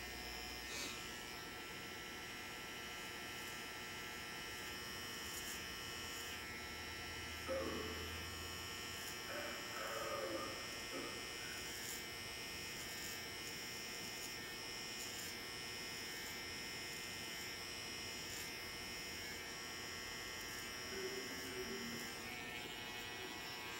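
Electric hair trimmer running steadily with a constant buzz, cutting hair at the back of the head and neck.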